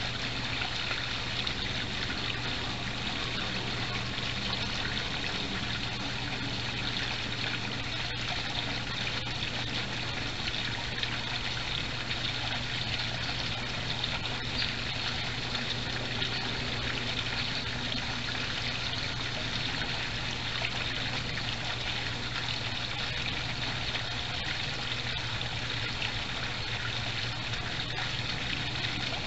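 Water trickling and splashing steadily into a koi pond, with a steady low hum beneath it.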